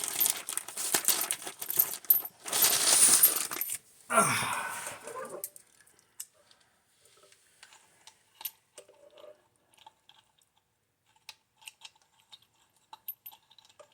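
Metal parts handled during a wheel install: about four seconds of loud clattering, then scattered light metallic clicks and clinks of lug nuts and washers.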